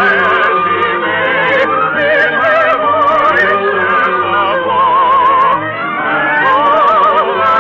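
Operatic singing with a wide vibrato on long held notes, over orchestral accompaniment, in a narrow-band old radio transcription.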